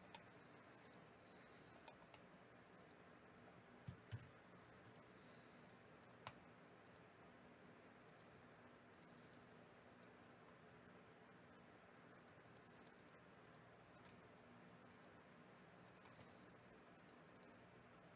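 Near silence with a few faint computer mouse clicks.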